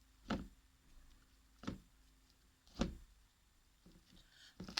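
Slime being stretched and squeezed by hand, giving short sharp pops: three spaced about a second apart, then a few more near the end.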